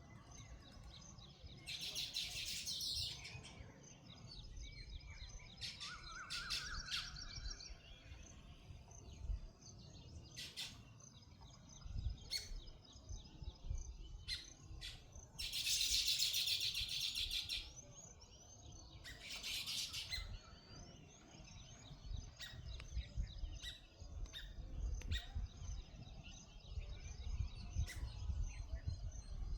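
Small birds chirping in short bursts, the longest and loudest burst about halfway through, with scattered sharp clicks and a low rumble underneath.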